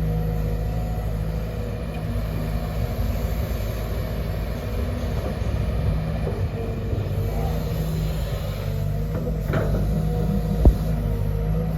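Sumitomo SH210 hydraulic excavator's diesel engine running steadily with a low hum and a faint higher whine over it, and a single sharp knock near the end.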